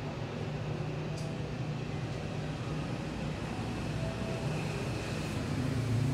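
Steady low mechanical hum with faint steady tones above it, growing somewhat louder near the end.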